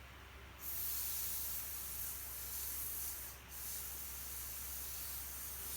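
Air hissing out of an Exmark Metro mower tire through its Schrader valve, deflating the tire. It starts about half a second in and briefly stops about three and a half seconds in before resuming.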